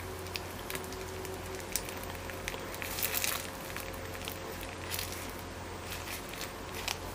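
Faint crinkling and squishing of a plastic piping bag as thick chocolate filling is squeezed out into a glass bowl, a little louder about three seconds in, over a steady low room hum.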